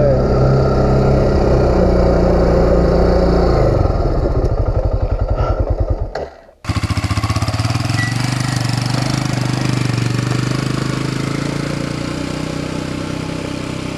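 ATV engine running steadily, then dropping to a slow, even idle pulse about four seconds in. After a sudden cut, an ATV engine runs steadily as the quad moves off, fading slightly near the end.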